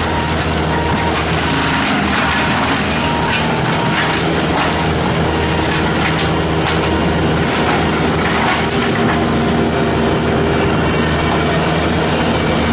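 Diesel engine of a Bobcat T770 tracked skid steer running hard under load while its forestry mulcher head grinds brush, a loud steady din with scattered sharp cracks.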